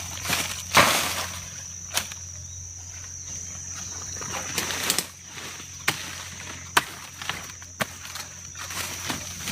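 Digging tool striking soil during a taro harvest: about half a dozen sharp, irregular knocks, the loudest about a second in, with a steady high thin tone behind.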